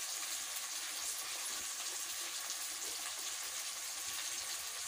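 Onion, tomato and spice masala frying in mustard oil in a kadhai: a steady sizzle.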